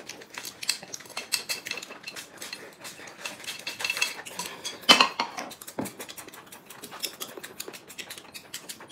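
Chopsticks clicking and scraping against porcelain plates and bowls during a meal of noodles, in many small irregular clicks, with one louder clatter about five seconds in.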